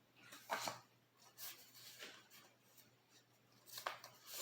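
Tarot cards being handled on a table: a few soft taps and rustles, the clearest about half a second in.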